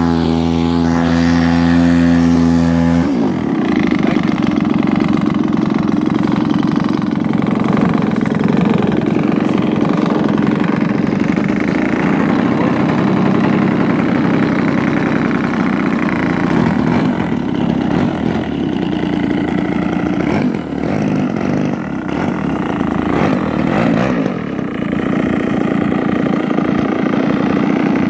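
DA-60 single-cylinder two-stroke gasoline engine of a large RC aerobatic plane, on its stock muffler, running at idle on the ground with its propeller turning. After a smooth, even drone for about the first three seconds, the sound turns rougher and pulsing, with small rises in speed later on.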